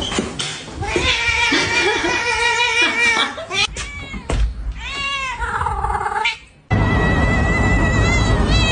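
Cats meowing and yowling in long, drawn-out calls, one rising then falling in pitch. A sudden cut leads to another long held yowl over a louder, rumbling background.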